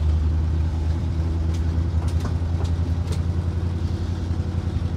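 Ford 332 Y-block V8 of a 1962 Ford C750 cabover idling steadily just after being started, heard from inside the cab, with an even low pulse. A few faint ticks come between about one and a half and three seconds in.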